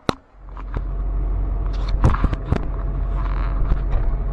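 Car running, heard from inside the cabin as a steady low rumble that comes in about half a second in after two sharp clicks, with a few knocks around two seconds in.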